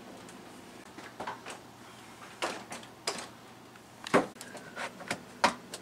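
About eight irregular knocks and clicks, as of hard parts or objects being handled and set down. The loudest come near the middle and near the end.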